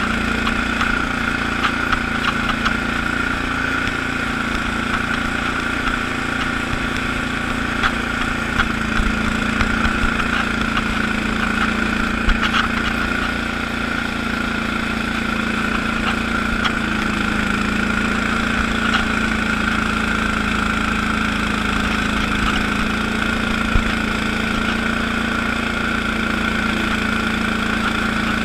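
Allis-Chalmers HB-112 garden tractor engine running steadily at working speed, driving a 48-inch Sweepster rotary broom through snow. A few faint ticks come through over the hum.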